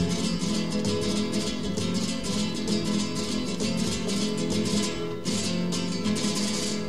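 Background music: flamenco-style acoustic guitar playing a quick run of plucked and strummed notes.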